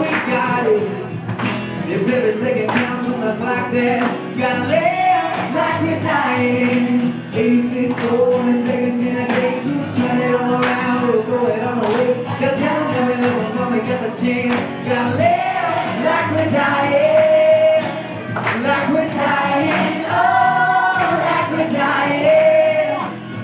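Live song: a man singing lead while strumming an acoustic guitar in a steady rhythm, with young voices singing along behind him.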